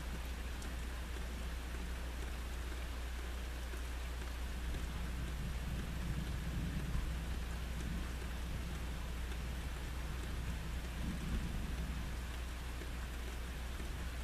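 Steady rain hissing, with distant thunder rumbling low, swelling about five seconds in and again near eleven seconds.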